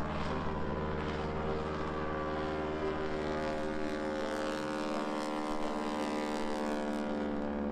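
Propeller aircraft engine running at a steady cruise, a continuous even drone.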